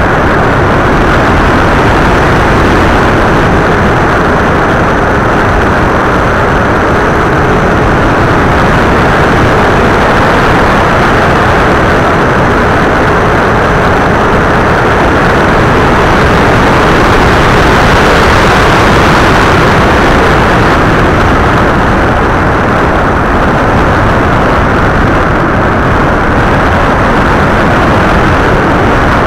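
Loud, steady wind and propeller noise from an FPV model aircraft in flight, recorded by its onboard camera, with a faint motor hum underneath.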